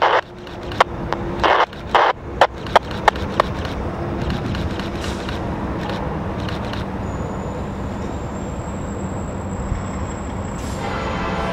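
Freight train sounds: a run of sharp clicks in the first few seconds, then a steady rumble with a faint high whine, and a locomotive horn starting to blow near the end.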